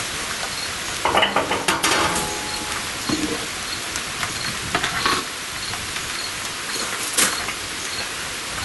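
Steel lid of a Pit Barrel Cooker clanking as it is lifted off and set against the barrel, with a brief metallic ring about two seconds in, over a steady hiss of rain. A couple of sharp clicks and knocks follow.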